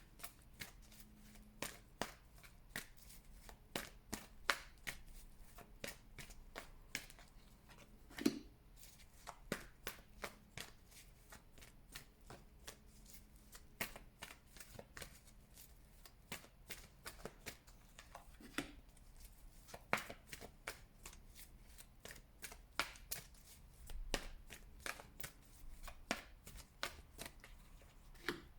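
A deck of tarot cards being shuffled by hand: a long run of quick, irregular card snaps and slaps.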